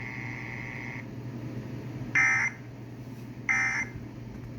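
Emergency Alert System end-of-message code on NOAA Weather Radio: short, buzzy digital data bursts about 1.3 seconds apart, twice, signalling the end of the flash flood warning broadcast.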